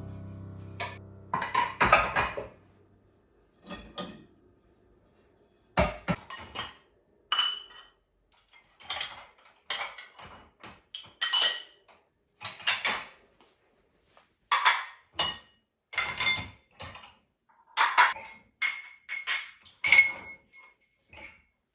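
Dishes and cutlery clinking and knocking as they are handled and set down: a string of separate clinks, some ringing briefly.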